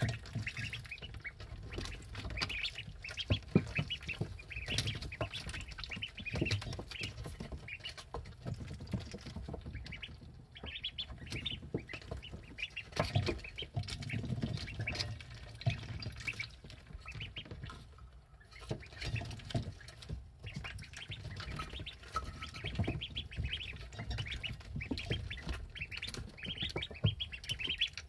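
Eleven-day-old ducklings peeping in quick, high runs of calls, with scattered clicks as they drink and feed at the dishes.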